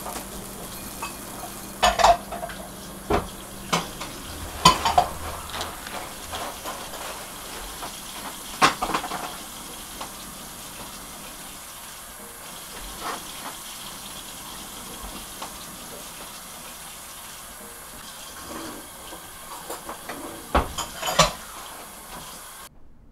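Dishes and cutlery clinking and clattering now and then against a steady background hiss, with sharp knocks a few seconds apart and a cluster of them near the end.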